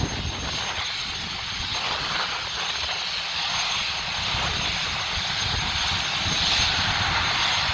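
Large helicopter's turbine engines and rotors running steadily on the ground while warming up before takeoff, a continuous rushing drone with a thin steady high whine.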